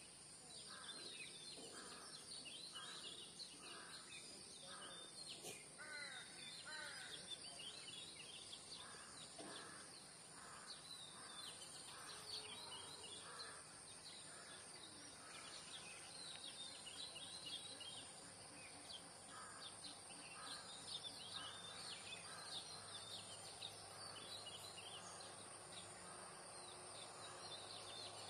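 Quiet rural roadside morning ambience: a crow cawing in runs of repeated calls, about two a second, three times over, with small birds chirping throughout and a steady high-pitched hum in the background.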